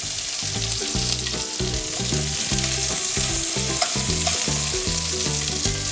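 Hot oil and chicken drippings sizzling steadily in a frying pan just after the browned chicken thighs have been lifted out.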